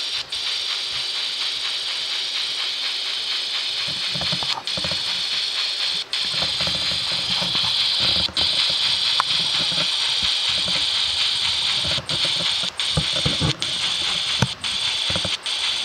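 An N-scale GHQ Northern Pacific W3 Mikado steam locomotive running on the rails, with its DCC sound decoder's steam sounds over the rattle of the gear mechanism. The sound cuts out for an instant several times, more often near the end. These are brief losses of electrical contact with the rail, which the owner blames on stove ash on the track and on a mechanism not yet broken in.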